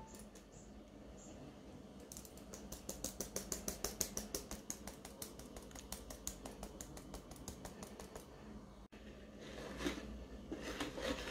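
Fine-mesh metal sieve tapped by hand to sift flour: a faint, even run of light taps, about six a second, lasting several seconds. Near the end a wire whisk starts scraping through the flour in the bowl.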